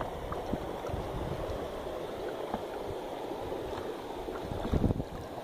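Steady rush of river water along a small boat, with wind buffeting the microphone, strongest near the end.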